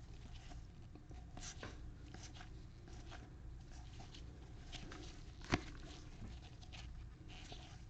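Football trading cards being handled and flipped through, a run of faint rustles and small clicks, with one sharper tap about five and a half seconds in.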